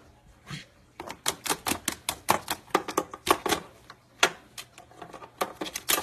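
A white-bellied caique's claws and beak clicking and tapping on hard plastic game cases as it hops about and tugs at a cord: quick, irregular clicks, several a second, starting about a second in with a brief pause midway.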